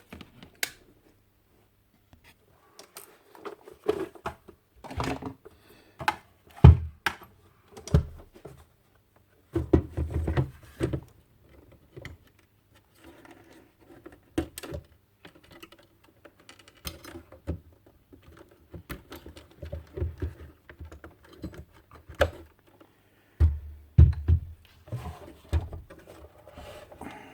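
Irregular clicking, tapping and knocking of hard plastic parts being handled while a Makita job-site radio is worked on, with a few heavier thumps.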